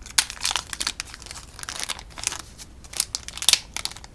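The small packaging of a set of sample playing cards being handled and pulled open, with irregular crinkling and crackling close to the microphone.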